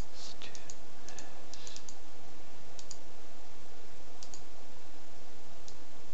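Computer mouse buttons clicking: a quick run of clicks in the first two seconds, then a few single clicks more than a second apart, over a steady hiss.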